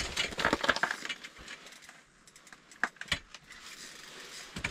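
Crunching and rustling handling noises, dense at first, then two sharp clicks about three seconds in: people shifting on a snow-covered floor and handling fishing gear.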